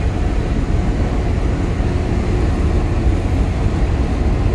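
Steady low rumble of wind buffeting the microphone over open water, with the drone of an engine underneath.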